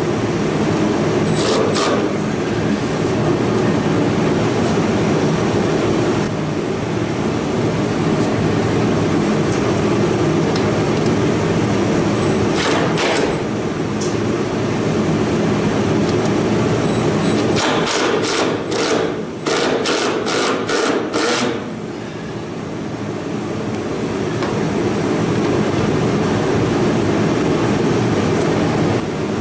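Cordless drill-driver working screws out of a pickup truck's sheet-metal cowl: a few short sharp hits, then a quick run of about eight sharp clicks about two-thirds of the way through. All of it sits over a steady loud hum.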